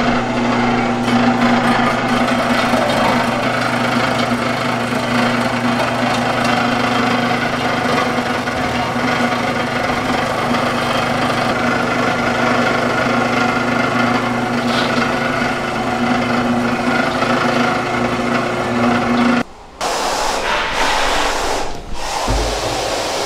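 Commercial bowl cutter (food chopper) running, its motor giving a steady hum with a whir of blades as it chops carrots and onions; it stops suddenly near the end, followed by a short clatter.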